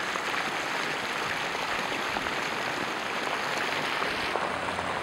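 Flash-flood water rushing down a street in a fast, foamy sheet: a steady, even rush, which has grown more intense as the flow builds. The sound shifts abruptly near the end.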